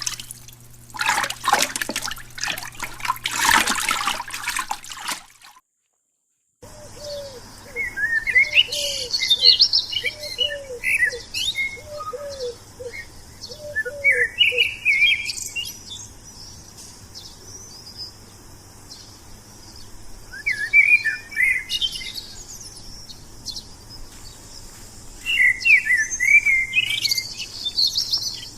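A loud burst of rushing noise that cuts off to silence after about five seconds. Then wild birds chirp and sing in scattered phrases over a steady high hiss, with a low call repeated about ten times in quick succession through the middle part.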